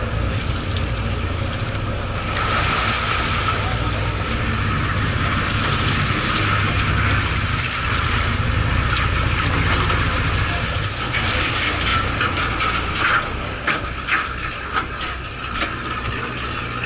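The boat's engine drones steadily and low. About two seconds in, a rush of water starts: the live bait tank filling from its inflow pipe. Several sharp clicks and knocks come near the end.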